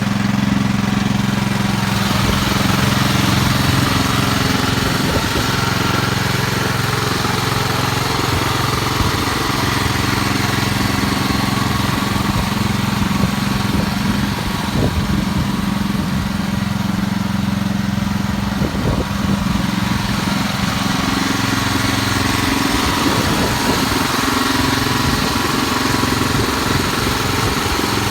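Wheel Horse garden tractor's engine running steadily, working under load while pulling a plough.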